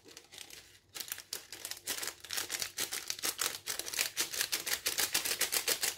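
Small foil sachet of seasoning granules shaken rapidly over raw chicken wings: a fast, even crinkling rattle that starts about a second in and stops near the end.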